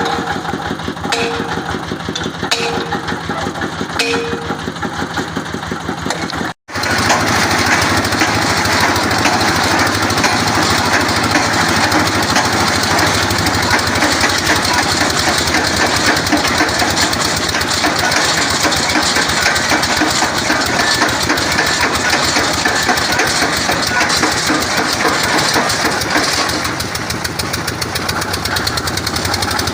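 Engine of a water-well boring machine running steadily. For the first six seconds short ringing notes recur about every second and a half; after a brief break about six and a half seconds in, the engine comes back louder.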